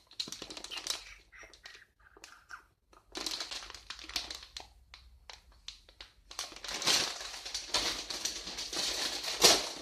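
Crinkling and rustling of a plastic food packet being handled, in irregular crackles, sparse at first and busier from about three seconds in.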